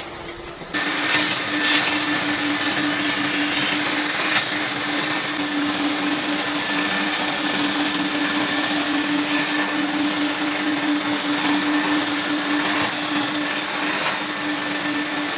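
Steady motor noise from a woodworking power tool with an industrial vacuum extracting the shavings, carrying a constant low hum and a faint high whine. It starts abruptly about a second in.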